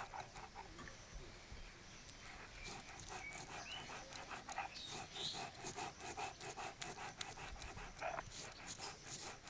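Stone muller (nora) rubbed back and forth over a flat grinding stone (sil), grinding poppy seeds into a paste, in faint, quick, repeated scraping strokes.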